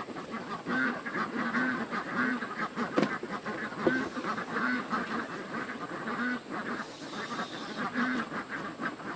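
A flock of farm waterfowl calling over and over, short calls overlapping several times a second. A sharp click sounds about three seconds in.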